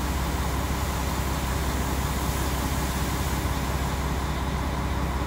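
Mercedes-Benz O 500 bus's diesel engine idling steadily at about 650 rpm, a constant low hum.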